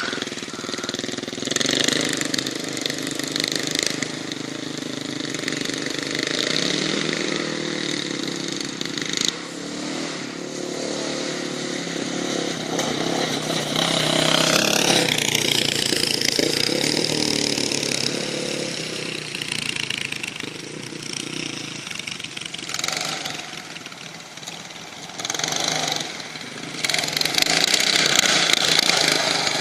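Off-road buggy engine running and revving up and down as it drives, its pitch rising and falling, with the busiest revving about halfway through.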